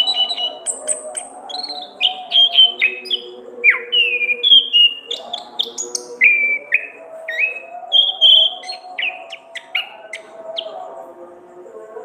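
Orange-headed thrush singing a fast, varied song of clear whistled notes and short downward slurs mixed with sharp clicky notes.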